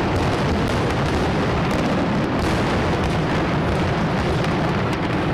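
Aerial fireworks shells bursting, heard as a continuous dense rumble of explosions with a few sharper cracks standing out.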